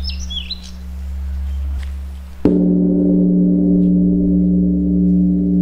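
Large Buddhist temple bell struck once about halfway through, then ringing on loudly with a deep hum and several steady overtones. Before the strike, a low hum lingers and birds chirp.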